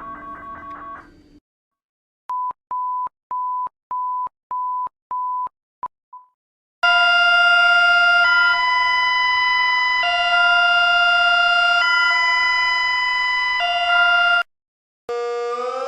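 A sequence of emergency alert system alarm tones. A chiming tone ends about a second in; then comes a string of short, even beeps at one pitch; then a loud multi-tone alarm that switches back and forth between two chords for several seconds; and near the end a siren starts to wind up in pitch.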